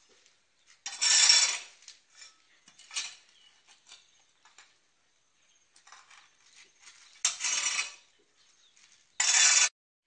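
A long-handled metal hoe scraping and chopping through wet mortar on a concrete slab, in separate strokes a few seconds apart. The loudest strokes come about a second in and again about seven seconds in.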